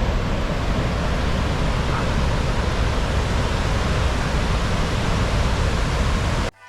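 Steady rushing of a large waterfall, an even wash of water noise heavy in the low end, which cuts off suddenly near the end.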